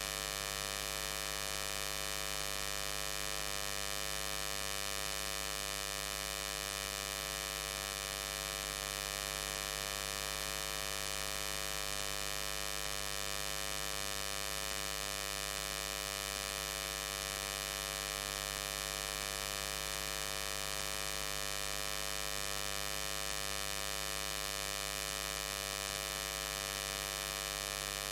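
Steady electrical hum with a buzzy whine above it, unchanging throughout, which the uploader blames on the inverter-powered lights.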